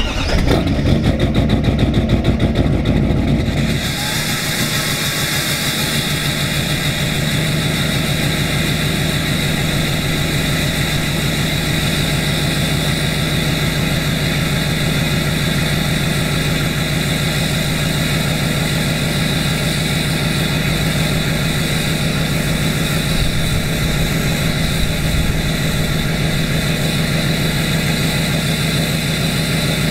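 2012 LML Duramax 6.6-litre V8 turbo-diesel, straight-piped through a 5-inch pipe to an 8-inch axle dump, starting cold in freezing weather. It catches right at the start and runs fast and loud for about four seconds, then drops to a steady idle.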